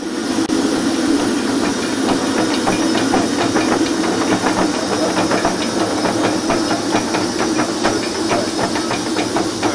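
Jet aircraft engine running on the apron: a steady, loud rushing hiss over a low hum, with many short ticks scattered through it.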